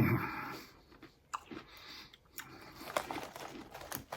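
A person chewing a mouthful of crunchy wavy-cut potato chips, with a dense run of small crackling crunches in the second half.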